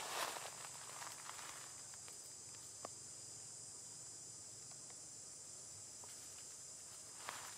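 Steady high-pitched insect drone, with rustling of dry leaf litter under a moving monkey in the first second or so and again near the end, and one faint click about three seconds in.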